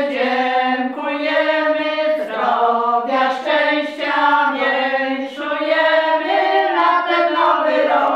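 A small group of women singing a song together, holding long notes that change pitch; the singing ends right at the close.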